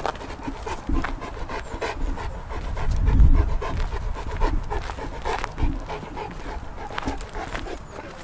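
St Bernard panting heavily as it walks on the lead, with short crunches of footsteps on gravel. A louder low rumble swells about three seconds in.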